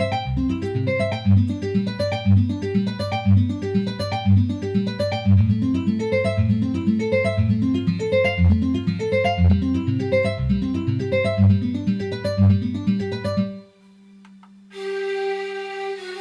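Roland AX-Edge keytar playing a plucked, guitar-like patch: a quick, even run of notes over a bass line that stops about three-quarters of the way in. After a short gap a held flute-like note begins.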